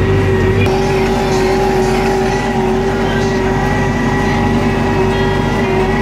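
Belarus 952.3 tractor's diesel engine running steadily under load while pulling a plough, heard from inside the cab. Its note shifts slightly about a second in, then holds steady.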